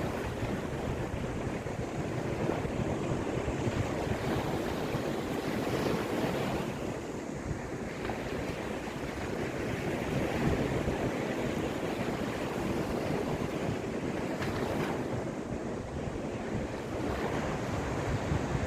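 Caspian Sea waves washing onto the shore, a continuous surf that swells and eases every few seconds, with wind rumbling on the microphone.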